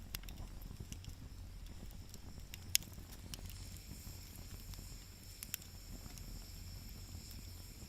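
Wood fire crackling in a fire stand: scattered small ticks with a few sharp pops, the loudest about three seconds in and two more about five and a half seconds in, over a steady low rumble.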